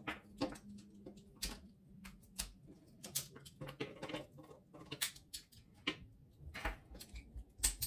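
Irregular light clicks and taps of small plastic and metal parts being handled: the nozzle and heating-element assembly of a dismantled hot glue gun being turned over in the hands.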